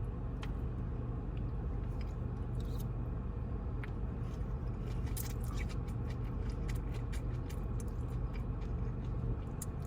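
Close-up chewing and biting of food, many short irregular wet clicks that come thicker after a few seconds, over a steady low hum.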